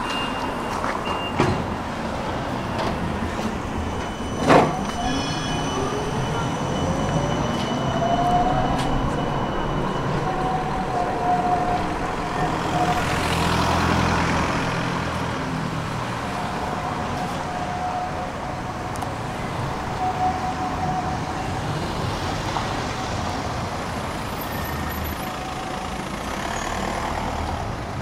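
Street traffic at a tram stop: cars passing, with a sharp knock about four and a half seconds in. A tram's electric whine rises in pitch, then holds a steady note on and off for much of the rest.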